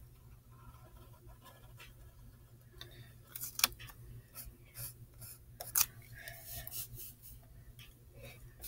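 A pencil scratching across paper in short, irregular sketching strokes, with two sharp clicks, one about three and a half seconds in and one near six seconds.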